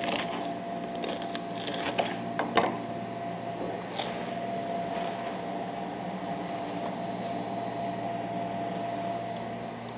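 Steady hum of bakery machinery. In the first few seconds a bread knife crackles through a crisp sourdough crust, and there is a single sharp click about four seconds in.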